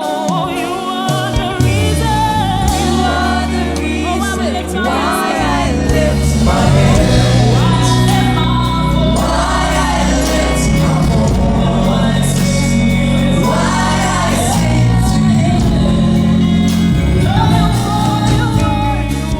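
Live gospel worship music: a choir and congregation singing over a band, with the bass and full band entering in the first few seconds.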